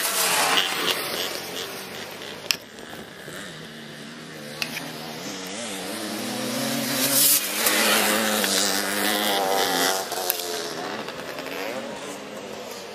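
Racing three-wheeler (ATC) engines passing on a dirt motocross track, their pitch rising and falling as the riders rev through the course, loudest about seven seconds in. Two sharp clicks stand out in the first half.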